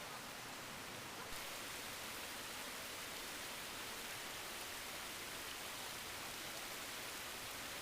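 Steady rushing of a spring-fed mountain stream flowing down its valley, a constant hiss of running water that turns a little louder and brighter just over a second in.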